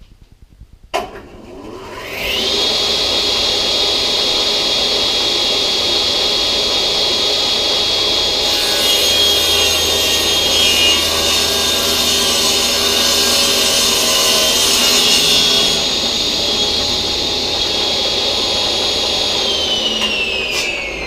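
Table saw switched on about a second in, its motor whining up to speed and running steadily. From about 8 to 16 s the blade cuts along a wood edge pushed through on a sled, trimming off about a millimetre for a straight glue joint. Near the end the saw is switched off and its whine falls as the blade spins down.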